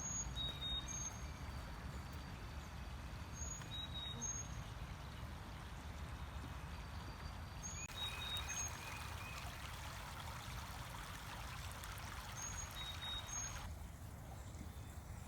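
A stream running steadily, with short high bird chirps repeating over it. The water sound gets brighter about halfway through and drops off abruptly near the end.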